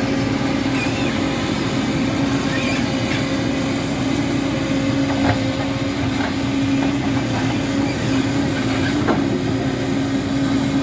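A JCB crawler excavator's diesel engine running steadily under working load with a steady hum, and a few brief squeaks about halfway through and near the end as the machine digs.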